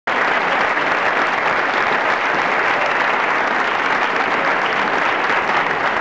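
Crowd applauding, a steady, dense clapping.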